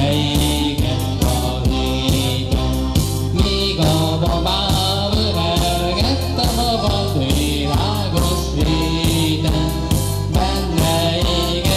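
Folk dance music on an electronic keyboard, with a steady beat, an alternating bass and a melody, and singing over it.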